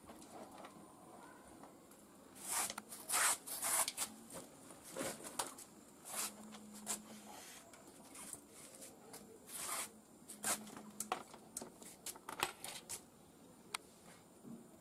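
Hands handling fiber-optic cable and a plastic fiber termination box: a string of short rustles and scrapes, busiest a couple of seconds in, then more scattered, dying away near the end.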